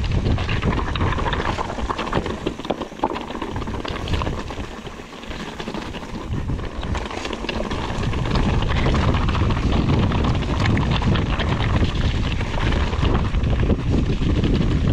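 Wind buffeting the microphone of a camera riding along on a mountain bike: a heavy low rumble that eases a few seconds in and grows louder again after about eight seconds, with frequent small clicks and rattles over it.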